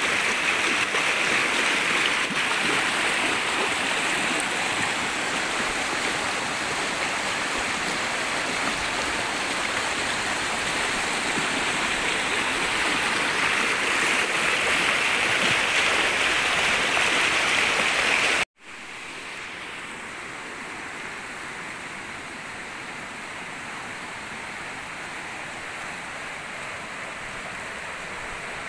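Steady rush of river water. It breaks off for an instant about eighteen seconds in and comes back quieter.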